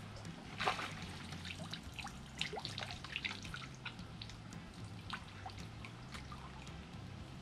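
Small splashes and drips of water from a hooked fish thrashing at the surface as it is drawn in to the bank, with the sharpest splash a little under a second in.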